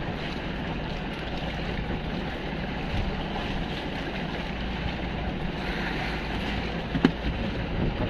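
Steady drone of a bangka fishing boat's engine, mixed with wind on the microphone and the wash of water around the hull. A single sharp knock about seven seconds in.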